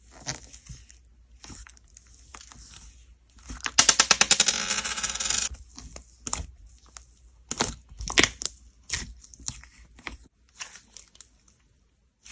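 Thick slime being pressed and squeezed by hand, giving sharp popping clicks of trapped air. A loud, rapid run of clicks lasts about two seconds near the middle, with scattered single pops before and after it.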